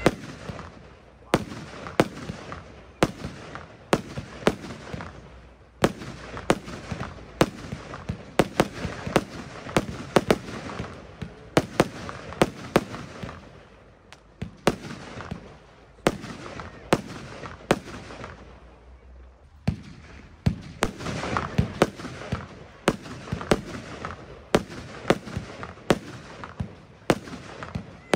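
Röder 'Atomik Sisters' firework battery firing shot after shot: sharp bangs about one or two a second, with crackling between them. It lulls briefly twice, about halfway through and again a little later.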